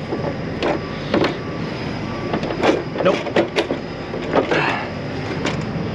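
Scattered sharp knocks and clatter of a semi truck's lower cab trim panel being handled and pried loose by hand, over a steady low engine rumble.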